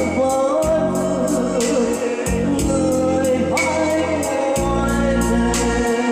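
Song with a singing voice over a steady drum beat and bass.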